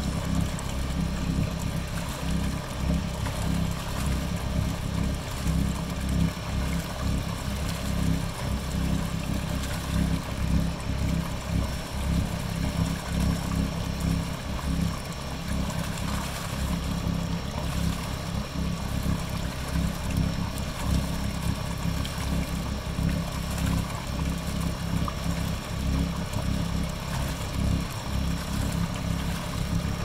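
Kohler 5E marine generator running, its wet exhaust discharging raw cooling water from a hull outlet: a steady low engine drone with water splashing onto the water below. The stream shows the raw-water cooling flow is working.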